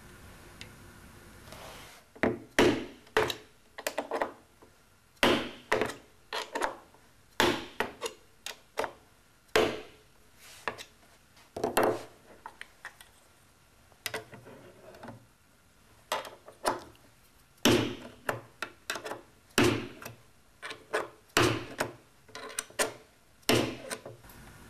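Irregular knocks, clacks and clicks of an orange plastic drilling template being handled and set in place on a board, with sharp taps of a white-headed mallet on the template near the end.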